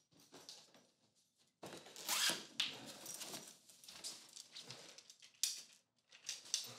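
Someone rummaging through a handbag: irregular rustling and handling noises of the bag and its contents, loudest from about two seconds in.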